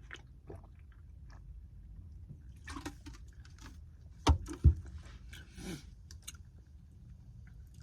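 A person eating soup: quiet chewing with small clicks and rustles. Two sharp knocks come half a second apart about four seconds in, the loudest sounds.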